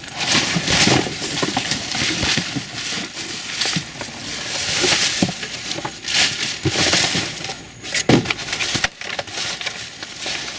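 Trash being rummaged through by hand: repeated rustling and crunching of bags, boxes and packaging, with a sharp knock about eight seconds in.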